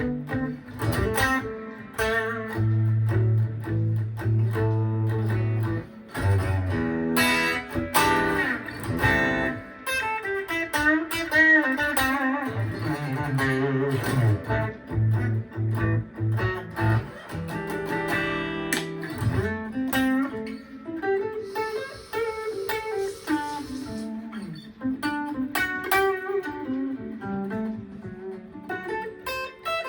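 Gibson ES-335 semi-hollow electric guitar playing blues licks, a continuous line of single notes and held notes with string bends.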